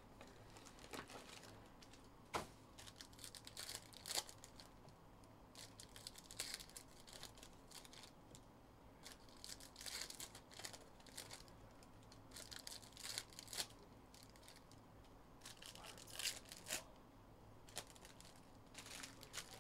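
Foil trading-card pack wrappers being torn open and crinkled by hand: a faint, irregular run of rips and crackly rustles.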